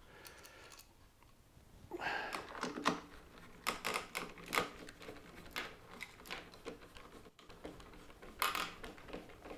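Irregular clicks and knocks of plastic mower-handle parts and hand tools being handled during a repair, starting about two seconds in.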